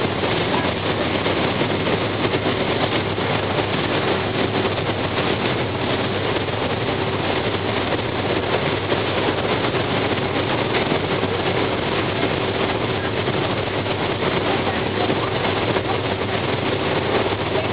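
Steady noise of a ferry under way, heard from its open deck: wake water rushing and wind over a machinery rumble, with one steady hum running through it.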